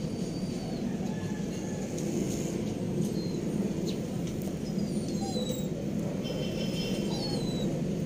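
Steady low background rumble, with small birds chirping briefly several times over it.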